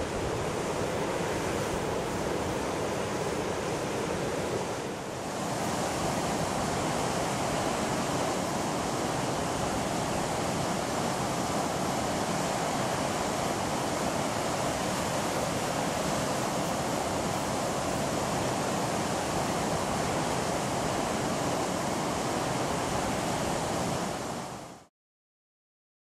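Steady rushing of a waterfall and its mountain stream tumbling over rocks. The sound dips briefly about five seconds in, comes back a little brighter, and cuts off abruptly near the end.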